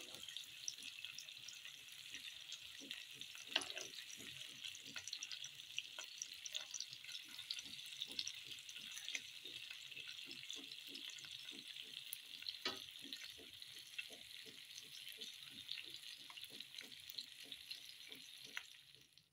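Seekh and chapli kababs shallow-frying in oil on a grill pan: a steady sizzle full of small spitting pops, with a few sharper clicks, cutting off suddenly near the end.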